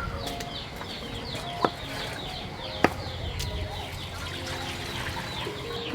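Chickens clucking, with many short, falling high-pitched calls throughout. Two sharp clicks come about 1.7 and 2.9 seconds in.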